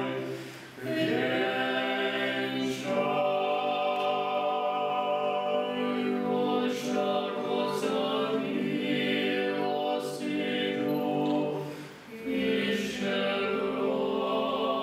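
Choir singing a cappella, holding long sustained chords, with a brief break between phrases about a second in and another near the end.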